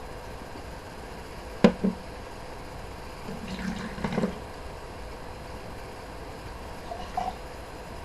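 Cranberry juice poured briefly into a cocktail jigger or shaker, with sharp knocks of glass or bottle against the counter; the loudest knock comes a little under two seconds in, and the pour about halfway through.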